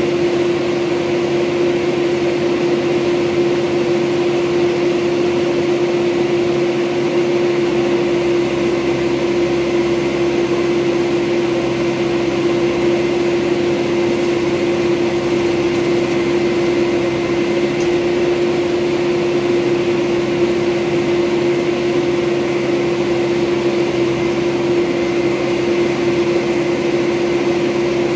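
Diesel engine running steadily at idle close by, with a strong unchanging hum at one pitch.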